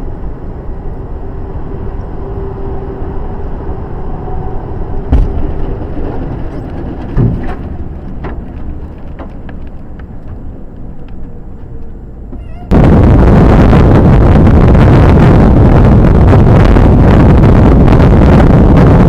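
Road and engine noise heard from inside a moving vehicle, a steady rumble with a faint hum and two sharp knocks about five and seven seconds in. About thirteen seconds in it gives way abruptly to loud, steady wind rushing over the microphone of a moving motorbike or scooter.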